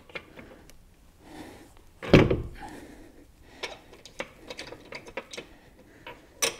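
Steel lug bolts being threaded by hand into a wheel hub: light metallic clicks and clinks, a few a second in the second half, with one louder knock about two seconds in.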